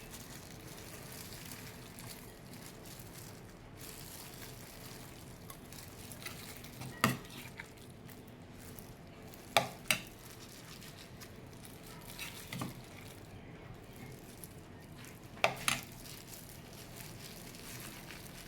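A spoon or utensil clinking sharply against a bowl or dish while ground-pork stuffing is scooped into a deboned chicken: one knock, then two quick pairs and a faint tap, over a steady low hiss.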